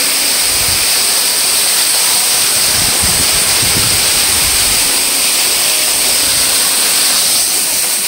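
Loud, steady rush of a nearby waterfall, mixed with heavy rain falling.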